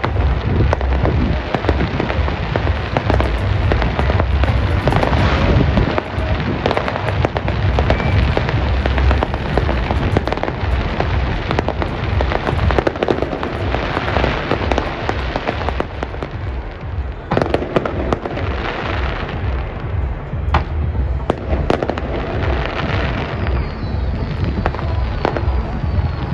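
Fireworks display going off in a dense, rapid barrage of booms and crackles, one burst after another with hardly a gap.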